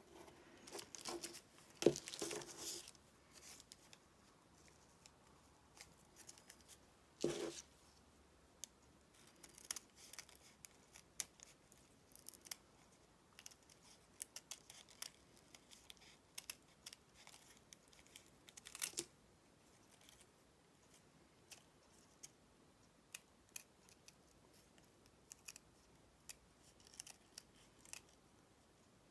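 Small scissors snipping out a piece of fabric in many short, quiet cuts, a few of them louder. In the first few seconds, a pencil scratching as it draws around the fabric piece.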